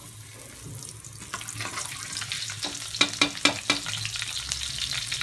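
Mustard, cumin and fenugreek seeds sizzling and spluttering in hot oil in a wok as a tempering, stirred with a metal spatula. The sizzle grows louder, with a quick run of sharp clicks about three seconds in.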